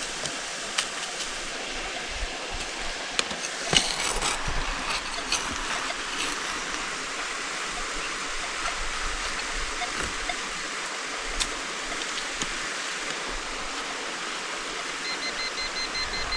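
Steady rush of creek water, with scattered clicks and knocks of digging among rocks and gravel in the streambed, the loudest about four seconds in. Near the end a metal detector gives a pulsed beeping tone.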